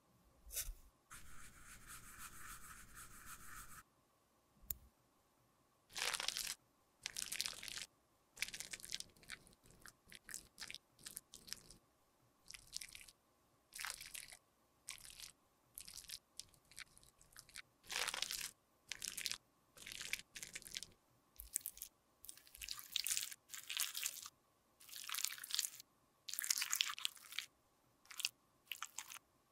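Metal spatula scraping and mashing powder makeup in a metal tin: a steadier scraping stretch near the start, then many short, separate scraping strokes at an uneven pace.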